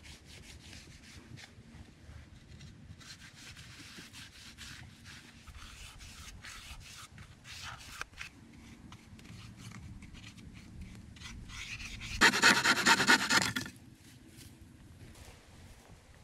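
Repeated hand rubbing and scraping strokes on a wooden board, then one much louder rasping scrape lasting about a second and a half, about twelve seconds in.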